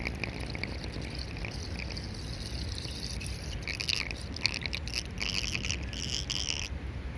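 Water draining down a whirlpool in a puddle, trickling and gurgling, with high, pulsing chirps that come in spurts and stop suddenly near the end.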